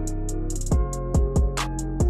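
Background music with a steady beat: deep kick-drum thumps and quick high ticks over held chords.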